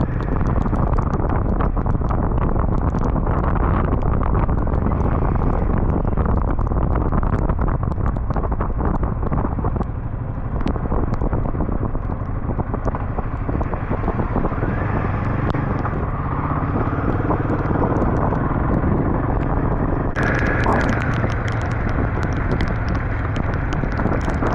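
Royal Enfield Himalayan 452 motorcycle running at road speed, its engine hum under heavy wind buffeting on the microphone. About twenty seconds in, a louder hiss suddenly joins.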